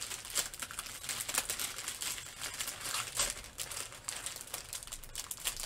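Clear plastic packaging crinkling and rustling as it is handled, in irregular short crackles.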